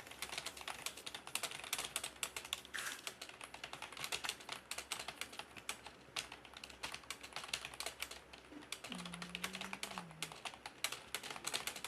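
Computer keyboard keys clicking in a fast, continuous stream of keystrokes: touch typing at about 140 words a minute.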